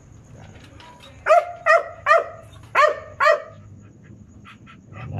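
A dog barking five times in quick succession, short fairly high-pitched barks.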